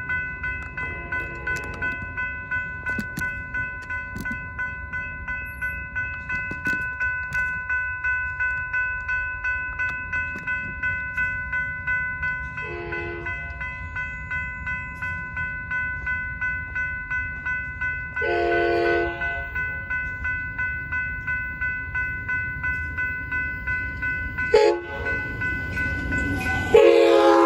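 Railroad crossing warning bell ringing steadily about twice a second, while the approaching Amtrak California train sounds its horn: a short blast, a longer one, another short one, then a long, loud blast near the end as it nears the crossing.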